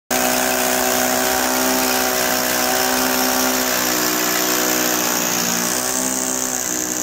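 Electric power tool running continuously as it breaks through a plastered brick wall, its pitch shifting slightly twice.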